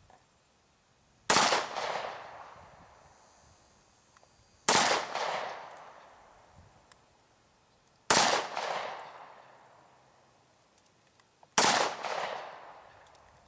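Hi-Point C9 9mm pistol firing four single shots of 115-grain ball ammunition, spaced evenly about three and a half seconds apart. Each sharp report is followed by an echo that fades over a second or two.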